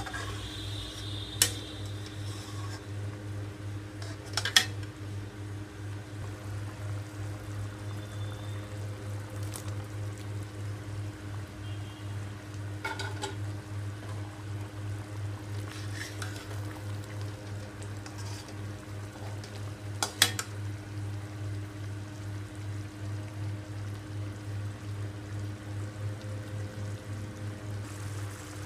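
A metal spoon knocking and scraping against a cooking pan while the curry is stirred, with a few sharp clinks, the loudest about 1.5, 4.5 and 20 seconds in. A steady low hum runs underneath.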